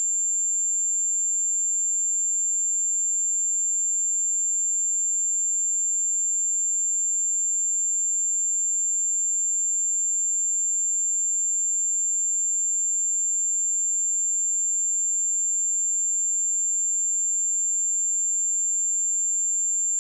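A steady, pure 7295 Hz sine-wave test tone, a single high-pitched whistle-like pitch held unchanged.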